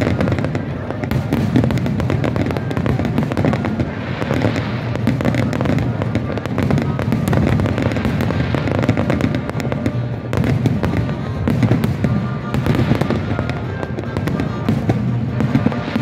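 Fireworks display: rapid, continuous bangs and crackling, with music playing underneath.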